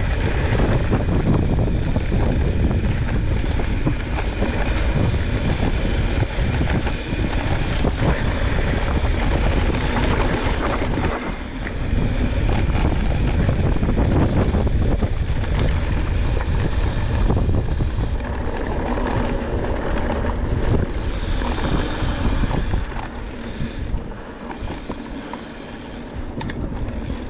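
Wind buffeting the camera microphone, mixed with knobby 29-inch mountain-bike tyres rolling fast over a dry dirt trail during a downhill run. The noise drops somewhat a few seconds before the end.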